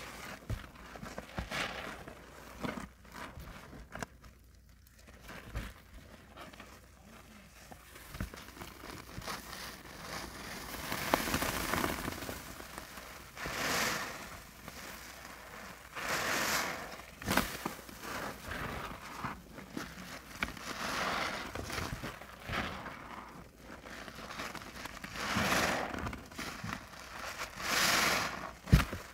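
Soapy sponges squeezed by gloved hands in a basin of sudsy water: wet squelching and crackling foam, in swells every few seconds as each squeeze presses the water out.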